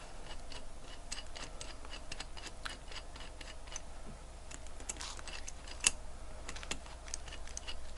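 Light, irregular clicks and clinks of a stainless steel watch bracelet and case being handled and seated among the plastic posts of a watch case holder, with one sharper click about six seconds in.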